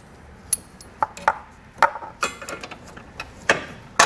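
Steel bolts with flat washers clinking and knocking against a steel tow bar base plate and frame rail as they are pushed through the mounting holes. It comes as a string of separate short clicks and knocks, the sharpest near the end.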